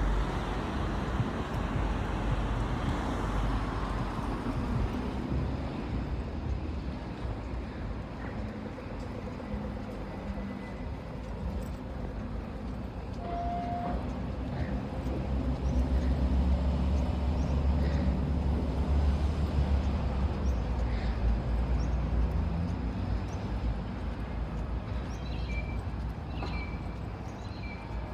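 Outdoor city ambience with a steady low rumble of road traffic, swelling louder a little past the middle, and a few short high chirps near the end.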